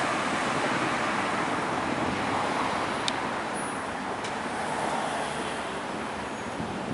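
Steady street traffic noise, a continuous rushing of passing cars that swells and fades gently, with two faint sharp ticks about a second apart around the middle.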